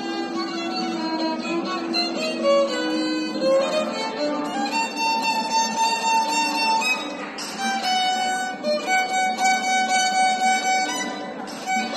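Solo violin played with the bow: a melody that moves from shorter, lower notes to longer, higher held notes about halfway through.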